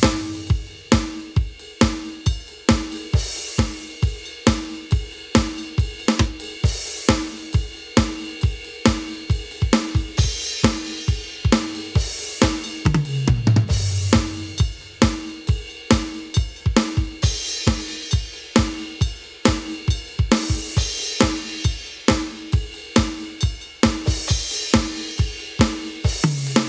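Aroma TDX-25 electronic drum kit played on its 70's Fusion kit sound: a steady groove of kick, snare, hi-hat and cymbals. About halfway through, and again at the very end, a fill runs down the toms.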